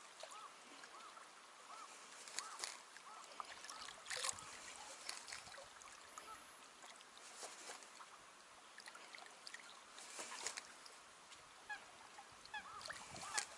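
Faint, repeated short calls of waterfowl carrying across open water, over a soft wash of water lapping, with a few sharp clicks scattered through.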